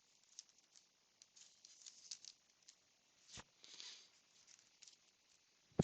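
Faint rustling and light clicking of baseball cards being flipped through and handled by hand, with a swish just before four seconds in and a sharper click at the end.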